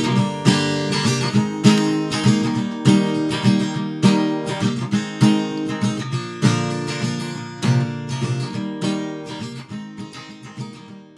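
Acoustic guitar music with strummed and plucked chords, fading out near the end.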